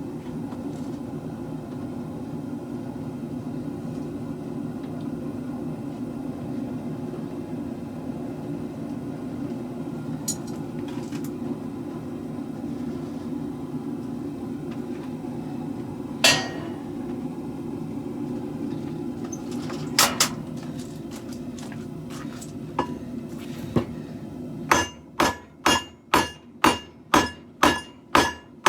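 A steady low rushing hum with a few scattered metallic clinks, then near the end a run of about ten hammer blows on steel at an anvil, roughly two and a half a second, each with a bright ring.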